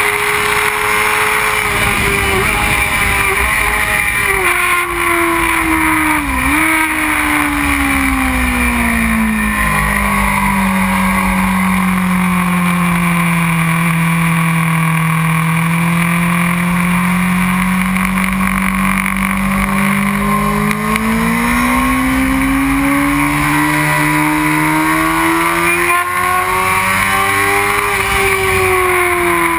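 Onboard sound of a 2001 Honda CBR600 F4i's inline-four engine at speed, with wind rushing over the microphone. Its pitch drops as the rider slows and downshifts a few seconds in, with a short throttle blip. It stays low through a long corner, then climbs steadily as the bike accelerates out, and eases off again near the end.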